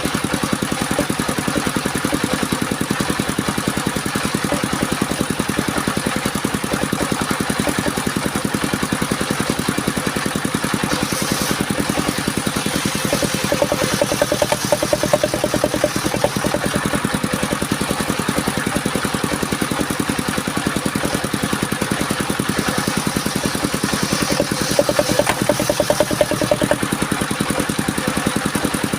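The engine of a portable circular sawmill running steadily, growing a little louder twice, once in the middle and once near the end.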